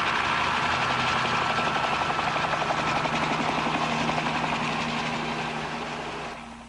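Aircraft engine running steadily, with a thin high whine over it, fading away near the end.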